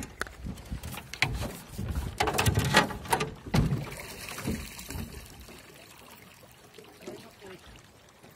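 A run of knocks and rubbing from the camera being handled in a small boat, the loudest knock about three and a half seconds in. After that, water trickles and laps quietly against the hull.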